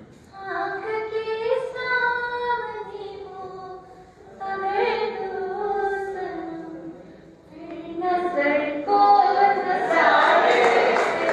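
A woman sings a poem into a microphone to a tune, in phrases of long held notes with short breaths between. Near the end, a dense rush of noise rises beneath her voice and becomes the loudest part.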